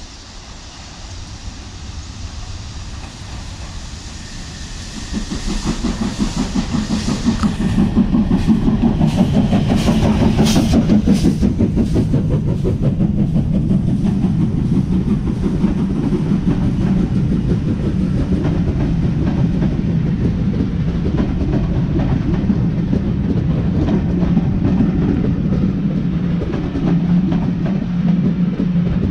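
Steam train drawing in along the platform. Its noise builds over the first few seconds, and the locomotive goes by about eight to twelve seconds in with a run of sharp hissing beats. After that the coaches' wheels rumble and clack steadily over the rail joints.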